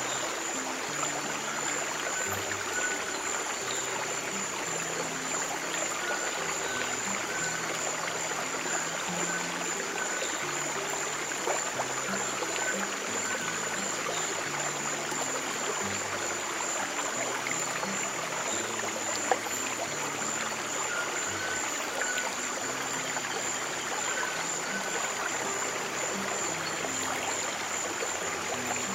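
Flowing stream water running steadily, with soft low piano notes held and changing every second or so underneath and a faint steady high-pitched tone.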